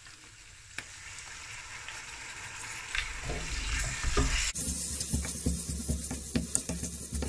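Pork slices and onion stir-frying in a white pan, sizzling and building as sweet bean sauce goes in. About halfway through the sizzle gets louder and a wooden spatula scrapes and tosses the food in quick strokes.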